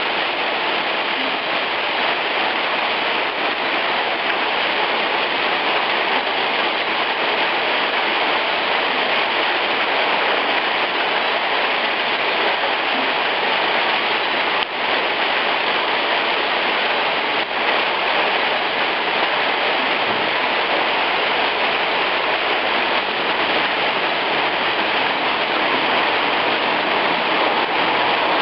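Heavy hail falling steadily on a cobbled street, a dense, even hiss of small ice pellets striking the stones.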